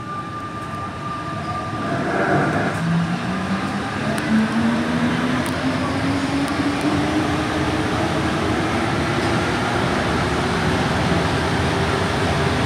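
Alstom NS-93 rubber-tyred metro train accelerating from a standstill, heard from the driver's cab: a traction-motor whine starts about two seconds in and climbs steadily in pitch as speed builds, over running noise that grows louder.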